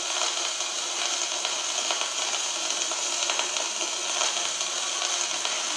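Concert hall audience noise: a steady, even hiss of crowd sound and clapping from a waiting audience.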